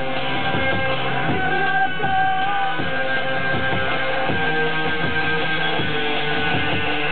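Live electro-punk band music: electric guitar played over a steady electronic beat, with long held synth tones.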